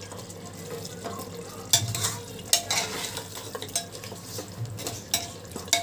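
A slotted metal spatula stirring mutton keema and potatoes frying in a pressure cooker pot: a steady sizzle with several sharp scrapes and knocks of the spatula against the pot.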